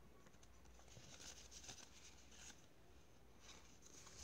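Near silence: room tone with a few faint rustles.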